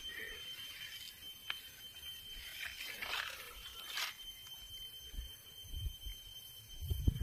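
A steady high-pitched tone over faint hiss, with a couple of brief rushing swells around the middle and low rumbles near the end.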